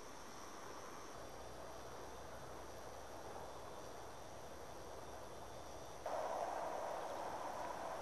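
Summer outdoor ambience with a steady, faint, high insect chirring. About six seconds in, a louder, even noise starts abruptly.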